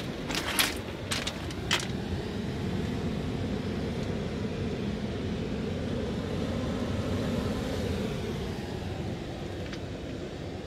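A few sharp stony clacks in the first two seconds, then a steady low rumble of surf and wind on a rocky shore that swells in the middle and eases off near the end.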